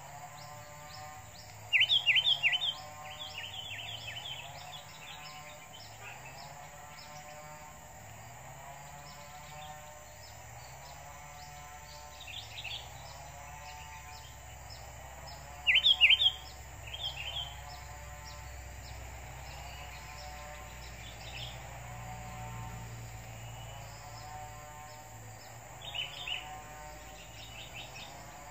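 Sooty-headed bulbuls giving bursts of sharp, rapid calls several times, loudest about two seconds in and again near the middle, as a decoy bulbul and a wild one face off. Behind them a lower call repeats steadily about every second and a half over a constant high hiss.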